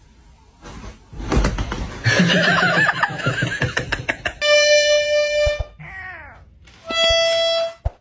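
A noisy scuffle with a wavering cry over the first few seconds. Then comes a comic sound effect: long held harmonica-like notes, broken by a short falling slide note.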